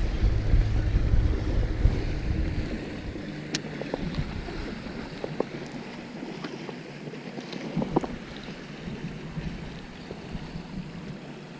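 Wind buffeting the microphone, a heavy low rumble at first that dies down after about three seconds, leaving a faint steady hiss with a few light clicks.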